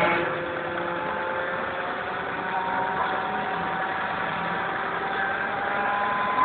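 Crane engine running steadily while it holds or hoists the bungee-jump basket, a continuous mechanical hum whose pitch drifts slowly.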